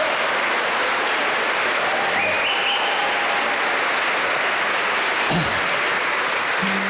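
Studio audience applauding steadily, a dense even clatter of many hands, with a few faint instrument or voice notes coming through near the end.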